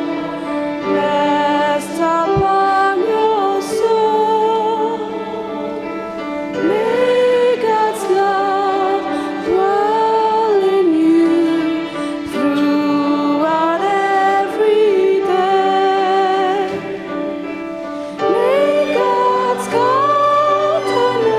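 Sung benediction: voices singing a slow, gentle melody with vibrato over long held accompanying notes.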